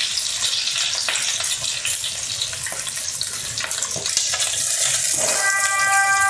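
Vegetables frying in hot oil in a pan, a steady sizzle with the oil spattering. Music comes in about five seconds in.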